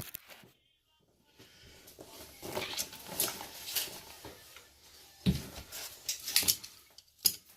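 Irregular scraping, rustling and soft knocking of hand work, with a few sharper clicks, starting about a second in after a short silence.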